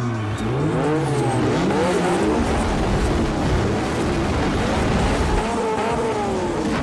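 A car engine revving up and down again and again over a loud rushing noise, starting abruptly.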